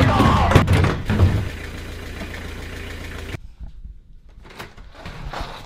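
Renault van's engine idling with a steady low rumble, with a few knocks in the first second and a half. The rumble cuts off abruptly about three and a half seconds in, leaving a few faint clicks of a door handle.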